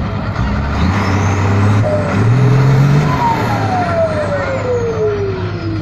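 Turbocharged diesel dump truck engine revving briefly, then its turbocharger howling with a whistle that falls steadily in pitch as it spools down.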